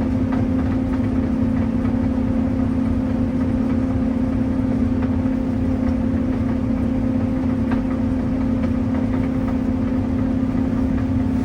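Combine harvester running steadily while harvesting beans, heard inside the cab: an even drone with a constant hum.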